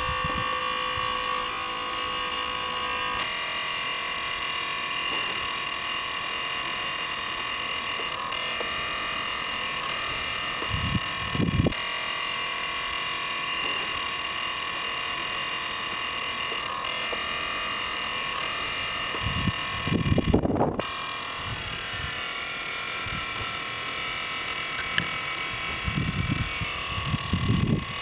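Small DC-motor compressor and cooling fan of a homemade refrigeration plate running with a steady high-pitched whine. A few short dull knocks sound about eleven seconds in, around twenty seconds in, and near the end.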